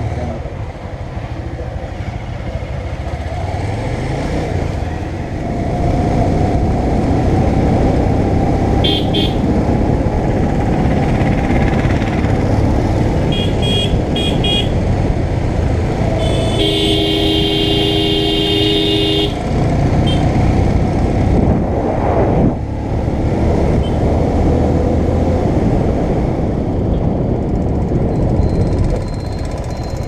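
Motorcycle engine and wind noise while riding; the engine picks up speed about five seconds in. A horn gives short toots about nine and fourteen seconds in, then one long honk of about two and a half seconds a little past halfway.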